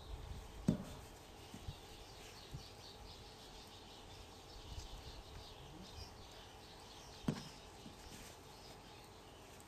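Faint outdoor background noise with light high chirps, likely birds, scattered through it, and two sharp knocks, one about a second in and one about seven seconds in.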